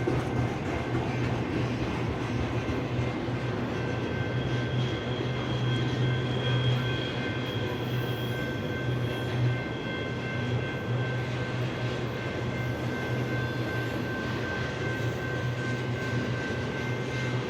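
BNSF intermodal freight train rolling past, a steady low rumble throughout. A thin, steady high-pitched whine comes in about four seconds in and holds.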